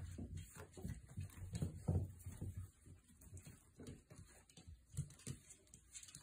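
Five-week-old F1 goldendoodle puppies moving about and climbing, with scattered short, soft sounds, a little louder in the first two seconds.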